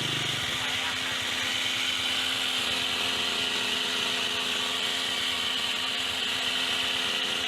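Petrol hedge trimmer engine running steadily at high speed with its blades working.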